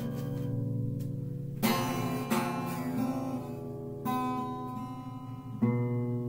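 Acoustic guitar music: chords struck about every one to two seconds and left to ring.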